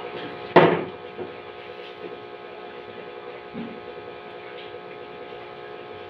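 A steady electrical mains hum, with one loud sharp clack about half a second in and two fainter knocks later as washing-machine parts and wiring are handled.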